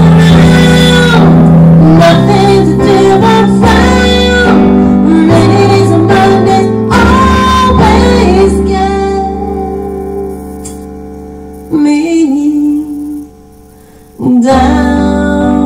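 A woman singing a slow ballad while accompanying herself on a Roland keyboard's piano voice, recorded loud and somewhat distorted. Near the middle a chord is held and fades, she sings one short line, there is a brief pause, and the keyboard chords start again near the end.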